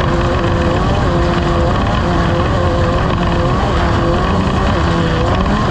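Boat engine running steadily under a loud, even wash of noise, its tone shifting up and down a little.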